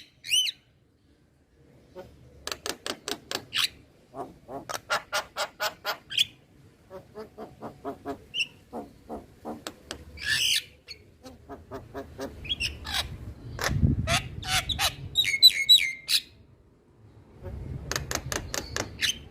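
Male Javan myna (jalak kebo) calling: runs of rapid, evenly spaced harsh notes, several a second, broken by short pauses, with squawks and a few higher whistled notes near the end.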